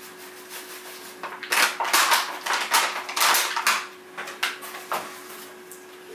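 Paper flour bag rustling and crinkling in a run of noisy scrapes for about three seconds as the last spelt flour is shaken out of it into a stainless steel mixing bowl, then a few shorter rustles as the bag is put down.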